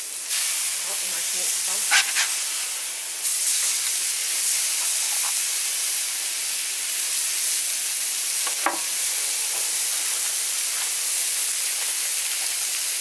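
Smashed beef burger patties sizzling on a hot griddle plate over charcoal, a steady hiss of frying fat. A couple of short sharp clicks cut through it, about two seconds in and again near nine seconds.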